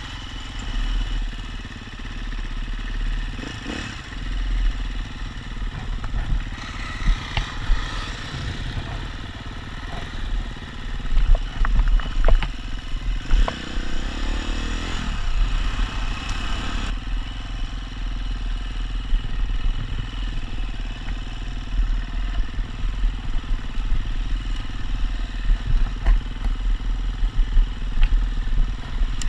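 KTM enduro dirt bike's single-cylinder engine running as it rides a rough grassy trail, over a strong low rumble, with occasional knocks and rattles from the bike over bumps.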